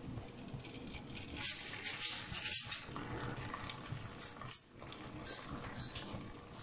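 Beaten egg and milk mixture sizzling as it is poured into hot butter in a frying pan, with a burst of sharper crackles about a second and a half in.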